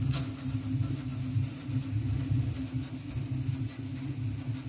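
STōN-3D high-speed 3D printer running a polycarbonate-carbon-fibre print with its part-cooling fan switched off, so what is heard is the pretty quiet, steady low hum of its motion system, pulsing slightly as the print head darts about.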